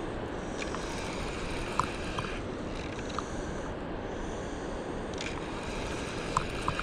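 Steady rush of water running below a dam, with a few light clicks as a spinning reel is cranked.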